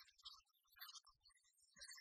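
Near silence, with only faint scattered hiss and specks of noise.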